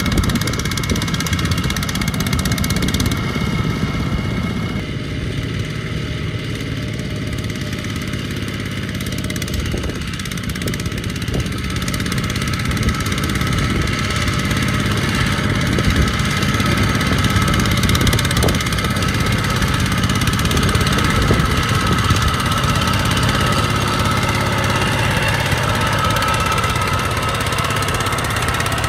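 Two-wheel walking tractor's single-cylinder diesel engine running steadily under load as it pulls a loaded rice trailer through mud. It grows slightly louder about halfway through.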